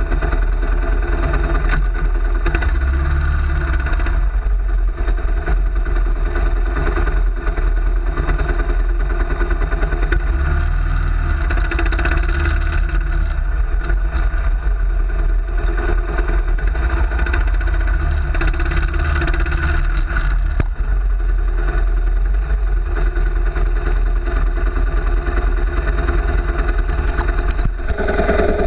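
Kawasaki KLR650's single-cylinder four-stroke engine running steadily, its pitch shifting a little now and then.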